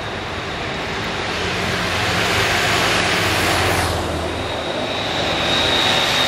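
Motorcycle engines growing louder as escort motorbikes approach along the road.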